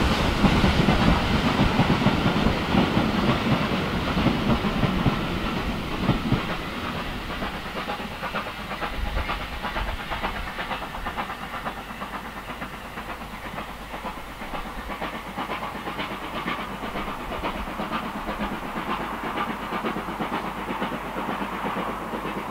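Southern Railway Q Class 0-6-0 steam locomotive No. 30541 and its train heading away: the locomotive's steam and the rolling of the coaches fade over the first several seconds, then carry on steadily in the distance.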